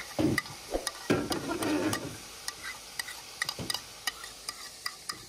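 Chicken pieces frying in oil in a large aluminium pot, sizzling steadily, as ginger paste is scraped off a steel plate into the pot. Several louder scrapes come in the first two seconds, then a string of sharp metal clicks and taps.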